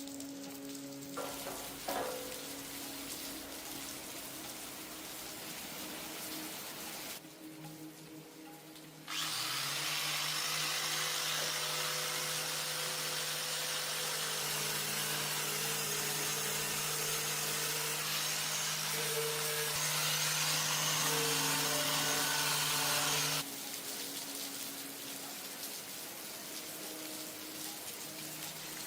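A power tool runs steadily for about fourteen seconds, starting and stopping abruptly, over soft background music and a steady hiss.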